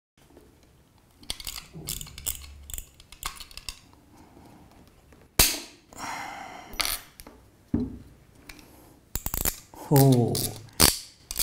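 The worn tip of a snap-off utility knife blade is broken off with pliers. Metal clicks and scrapes lead up to one sharp snap about five seconds in, the loudest sound. A few more clicks follow near the end.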